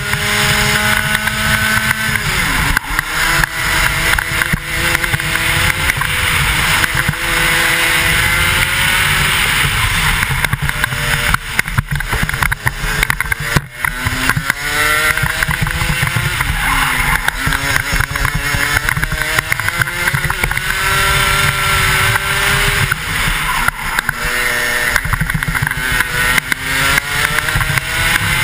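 A 125cc two-stroke kart engine at racing speed, heard from the driver's helmet. Its revs climb steadily and drop back sharply about four times as the kart brakes for corners, over a heavy rumble of wind on the microphone.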